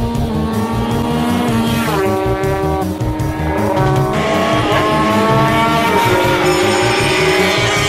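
Racing motorcycle engines revving and passing, their pitch climbing and falling away, over background music with a steady beat.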